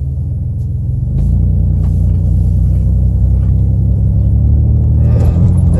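Car engine and road rumble heard from inside the moving vehicle. The rumble gets louder about a second in as the vehicle pulls away or speeds up, then holds steady.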